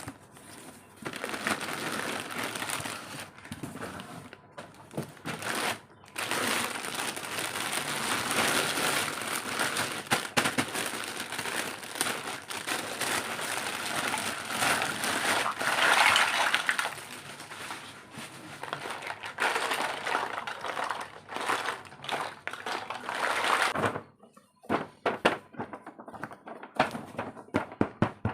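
Plastic packaging crinkling and rustling as a miniature toy kitchen set is unwrapped. About 24 seconds in the rustling stops, leaving scattered sharp clicks and taps of small plastic pieces being handled.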